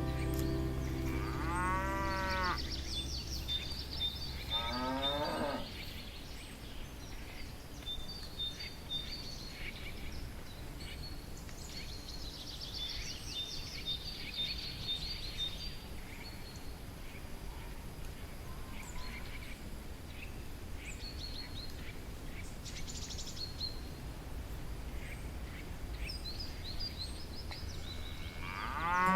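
Cattle mooing twice in the first few seconds, the second call sliding down in pitch, with birds chirping. After that come quieter field sounds and scattered chirps, and another moo starts right at the end.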